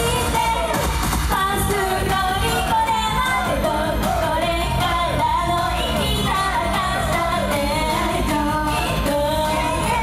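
Live idol pop performance: female voices singing over a loud, amplified pop backing track with a steady beat.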